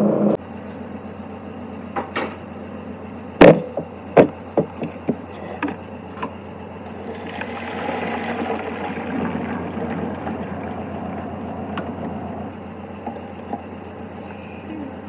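Pot and colander knocking against a stainless steel sink, several sharp clanks, then boiled macaroni and its hot water poured into a colander: a rushing splash that swells and fades over a few seconds as the pasta drains.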